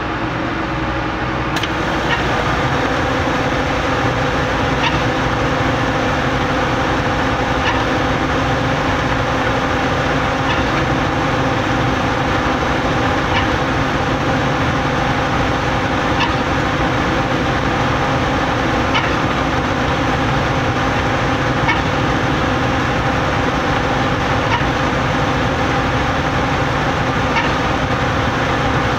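Putzmeister trailer concrete pump running steadily under load, its engine and hydraulics making a constant hum, with a light click about every three seconds as each pumping stroke changes over.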